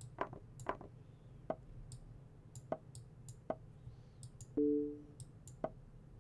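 A string of short, sharp clicks from a fast online blitz chess game: the chess site's move sounds as pieces are played, mixed with fine mouse clicks. About four and a half seconds in, a short two-note electronic beep sounds.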